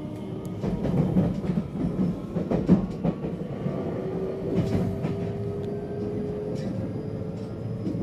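JR West 225-series electric train running, heard from inside the car: a steady rumble with sharp wheel clacks over the rail joints in the first few seconds. A steady tone rises slightly in pitch from about four seconds in.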